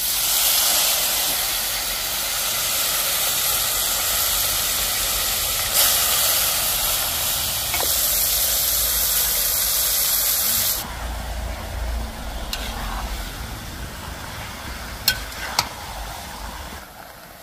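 Marinated chicken dropped into hot ghee and oil in a pan: a loud sizzle that starts suddenly, then settles about eleven seconds in to a quieter frying sizzle. A couple of sharp clicks come near the end.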